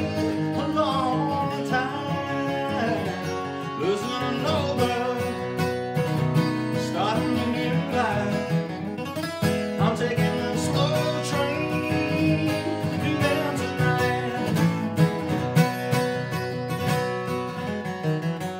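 Solo steel-string dreadnought acoustic guitar playing a bluegrass tune with a strummed rhythm, with a man's singing voice over it through much of the first part.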